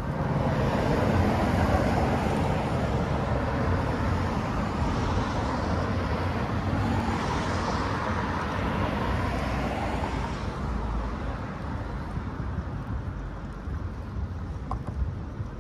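Road traffic on wet city streets: the rush of a motor vehicle passing close by. The noise swells at the start and fades out after about ten seconds.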